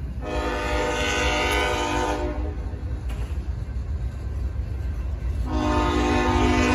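Train horn sounding two long blasts, the first lasting about two seconds and the second starting about five and a half seconds in. Under it runs the steady low rumble of a passing freight train's locomotives and cars.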